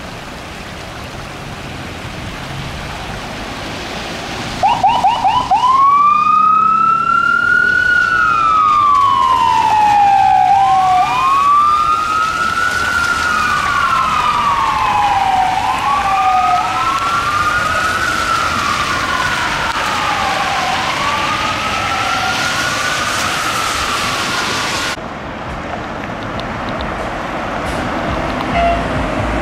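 Ambulance's electronic siren, starting with a few quick chirps and then wailing in slow rises and falls of about five seconds each, over a steady hiss of tyres on a wet, slushy road. The siren cuts off suddenly near the end.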